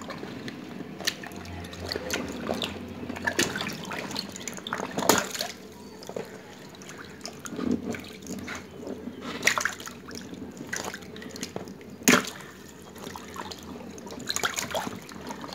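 Water balloons squeezed and sloshed by hand in shallow water, with splashing and dripping throughout. Two sharp pops stand out, about five and twelve seconds in, as balloons burst.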